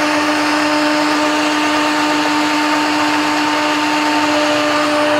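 Countertop jug blender running at a steady pitch, blending egg, oil, lemon juice and vinegar into mayonnaise.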